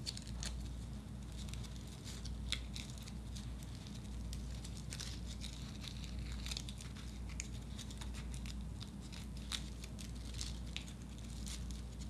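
Crepe paper crinkling and rustling faintly under the fingers as rolled stamen strips are wrapped around a wire pistil, with many small scattered clicks over a low steady hum.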